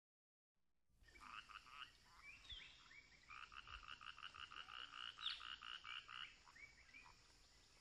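Faint animal calls: a fast, even run of short chirping pulses, about four or five a second, with a few brief gliding chirps, over a steady high hiss, starting about a second in.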